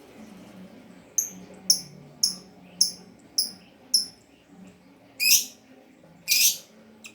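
Lovebird calling: a run of six short, sharp, high chirps about half a second apart, then two longer, harsher screeches.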